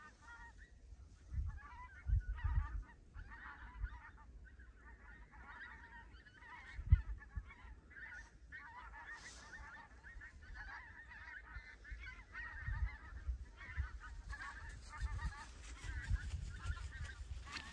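Pink-footed geese calling: a steady chatter of many overlapping high honks from a skein. Low thumps on the microphone come now and then, the loudest about seven seconds in.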